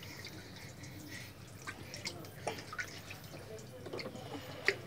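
Light splashing and dripping of water in a plastic tub as a baby is held and moved in it, with a few short sharper splashes, the loudest near the end.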